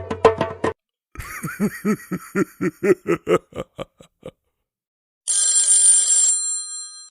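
A string of comic sound effects: the last strokes of a wood-block rhythm, then a run of bouncing pitched tones that come faster and faster for about three seconds, then a loud bell-like ring lasting about a second that cuts off, leaving a faint ring.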